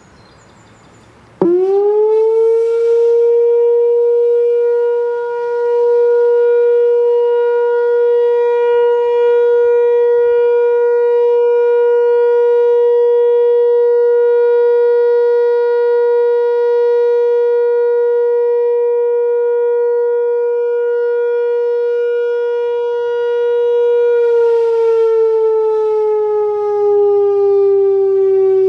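Whelen WPS-4004 electronic outdoor warning siren, run by an analog ESC-864 controller, sounding its steady Alert tone. It starts suddenly about a second and a half in, climbs quickly to one loud held pitch, and holds it for about twenty seconds. Near the end the pitch slowly slides down.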